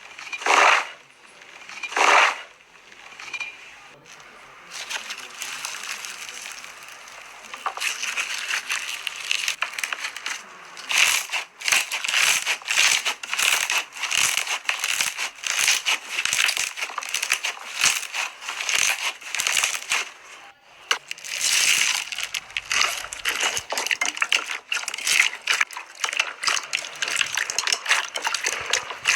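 Slime being squeezed and pressed by hand, giving a few loud squelches at first and then a dense run of crackling pops and clicks.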